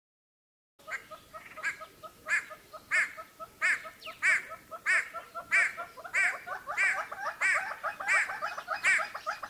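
Hornbill calling: a fast run of cackling notes starting about a second in, with a louder, higher note about every two-thirds of a second over quicker low clucks.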